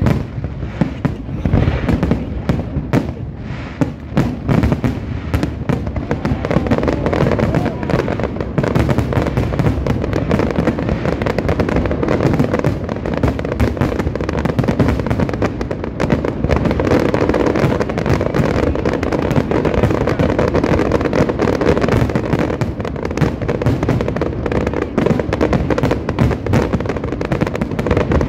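Fireworks finale: a dense, unbroken barrage of aerial shell bursts and crackling, with many bangs each second.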